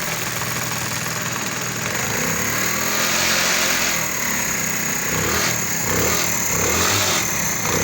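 Honda CD 70's single-cylinder four-stroke engine running, freshly fitted with a new timing chain, tensioner rollers and oil pump gear. It is revved up and back down about two seconds in, then blipped several more times.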